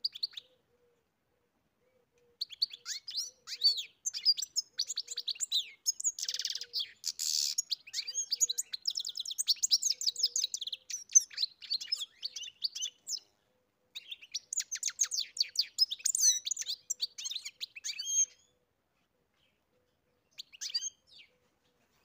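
European goldfinch singing: long phrases of rapid, high chirping notes, the first running from about two seconds in to about thirteen seconds, a second after a short break to about eighteen seconds, then a brief burst near the end. There is a harsher, raspier stretch partway through the first phrase.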